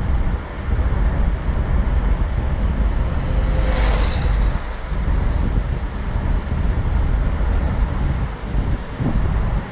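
Land Rover Discovery Sport driving on the road: a steady low rumble of road and wind noise, with a brief hiss about four seconds in.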